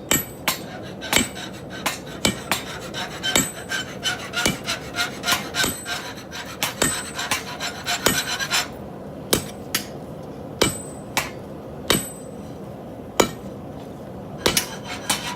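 Blacksmith's hammer striking metal on an anvil, about one heavy blow a second, each with a short metallic ring. Lighter taps fall between the blows at first, and the blows come further apart about halfway through.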